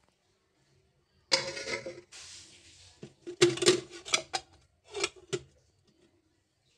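Aluminium pots and lids being handled: a scraping rub of metal on metal, then a string of sharp clanks and knocks as the lids are moved and set back on the pots.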